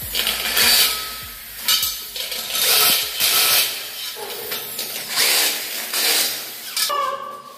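Corded electric drill boring holes through an aluminium track, running in a series of short bursts with pauses between.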